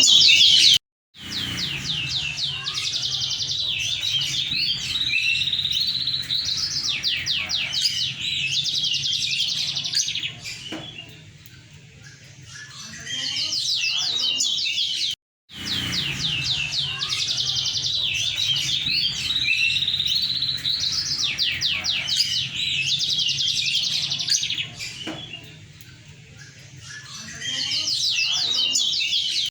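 Moken, a yellow-fronted canary × domestic canary hybrid, singing a long, high-pitched song of rapid trills and whistles that eases off briefly twice. The song cuts to silence about a second in and again midway, where the same passage starts over. A low steady hum runs beneath it.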